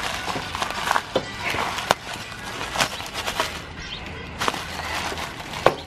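Plastic packaging and bubble wrap crinkling as they are handled, with scattered sharp crackles and clicks.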